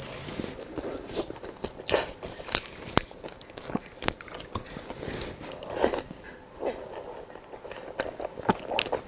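Close-miked biting and chewing of Chinese blood sausage: irregular sharp clicks and crunches, a few every second, with softer wet chewing in between.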